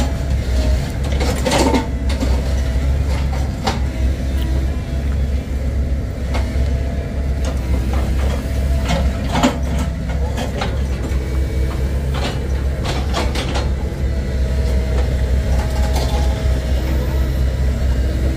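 Heavy truck's diesel engine running steadily, with scattered sharp metallic knocks and clanks, a cluster of them a little past the middle.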